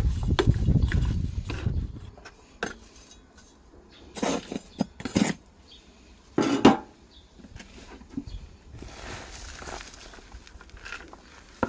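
Household containers and utensils being handled: a low rustling scrape for the first two seconds, then a few separate knocks and clinks with quiet gaps between.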